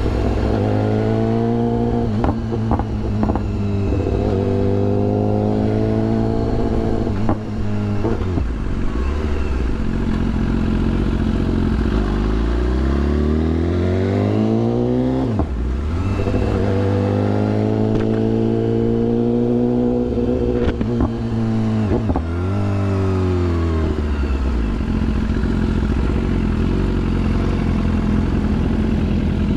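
BMW S1000RR's inline-four engine heard from on board while riding: steady at first, rising in pitch about halfway through as it accelerates, then cutting off sharply and settling steady again. It falls in pitch a few seconds later as the bike slows, and settles to a low idle for the last several seconds while stopped.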